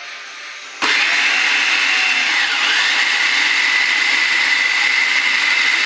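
Food processor motor switched on about a second in, then running steadily with a high whine as it blends flour, cocoa powder and eggs into pasta dough. The whine dips in pitch once, briefly, soon after starting.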